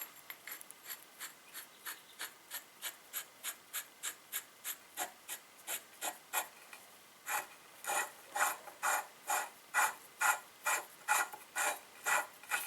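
Ratchet wrench clicking steadily, about three clicks a second, as a nut is turned. The clicks are faint at first, pause briefly about halfway through, then come back louder.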